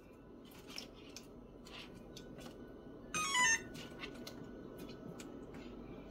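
A quick falling run of electronic beeps, about half a second long, about three seconds in, from an electronic appliance or phone. Faint kitchen clicks and a steady low hum lie underneath.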